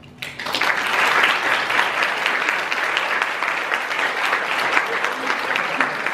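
Audience applauding, breaking out suddenly a moment in and going on steadily as dense, even clapping.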